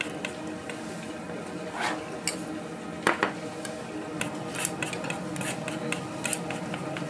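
Metal utensils and pans clinking and knocking while food is handled at a fish cake bar stall, with a sharper knock about three seconds in.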